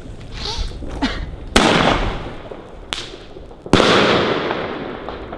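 Funke Tempest 30 mm mortar tube (Bombenrohr) firing a single shell. A loud thump as the shell launches about a second and a half in is followed about two seconds later by a louder bang as it bursts, each trailing off in a long echoing rumble, with a short sharp crack between them.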